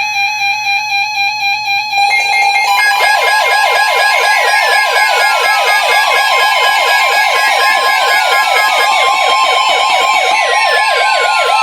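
Several weather alert radios going off at once for a severe thunderstorm warning. A pulsing beep alarm is joined about two seconds in by a fast warbling, siren-like alarm and NOAA's steady warning alarm tone, with slow falling sweeps layered over them.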